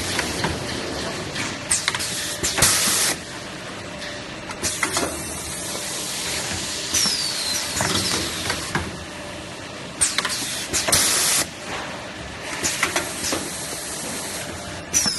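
Semi-automatic kitchen towel roll packing machine running through its repeating wrapping cycle: a steady mechanical clatter with clicks, a short loud hiss about every eight seconds, and a falling high squeal midway and again at the end.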